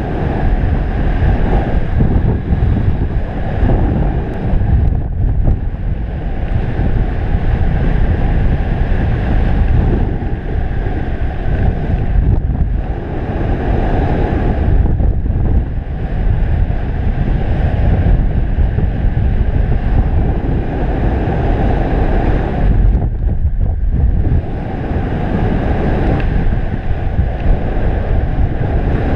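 Wind from the paraglider's airspeed buffeting the camera microphone in flight: a loud, steady rushing rumble that eases briefly a few times.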